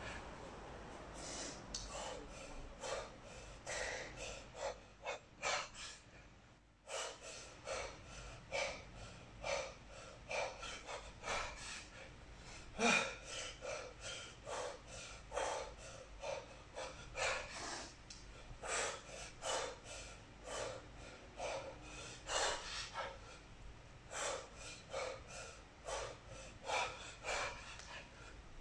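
A kettlebell lifter breathing hard through continuous 32 kg snatches: quick, forceful, sharp breaths, a few each second, in rhythm with the swings. There is a short pause in the breathing a little under a quarter of the way in, and one louder gasp about halfway through.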